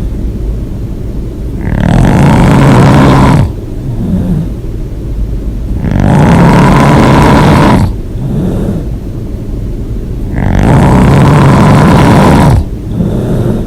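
A person snoring hard with the mouth open. Three long, loud snores come about four seconds apart, with quieter breaths between them.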